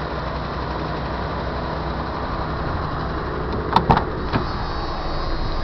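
1987 Dodge Dakota's 3.9-litre V6 idling steadily after a cold start; the owner suspects a bad lifter and a stuck valve. A few sharp knocks come about four seconds in as the cab door is handled.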